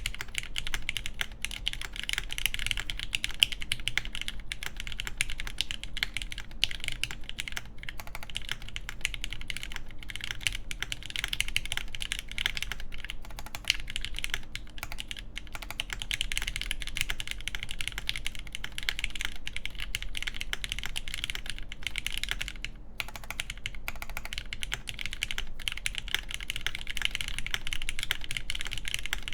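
Continuous fast typing on a mechanical keyboard with lubed, filmed linear Gateron Yellow switches (milky housings) on an aluminum half plate under GMK keycaps: a steady stream of key presses and returns, pausing briefly about three-quarters of the way through.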